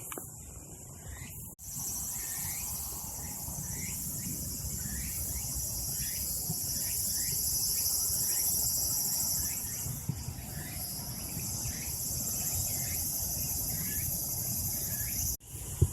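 Evening insects calling: a steady, high, pulsing buzz, with a short chirp repeating about twice a second underneath and a low outdoor rumble. The sound drops out sharply about a second and a half in and again near the end.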